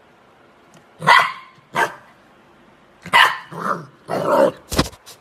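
Golden retriever puppy barking: five short barks, two spaced apart and then three close together, followed by a sharp knock just before the end.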